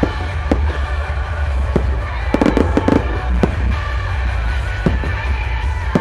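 Fireworks shells bursting: scattered single bangs, with a quick cluster of reports about two and a half to three seconds in. Loud music with a steady bass plays throughout.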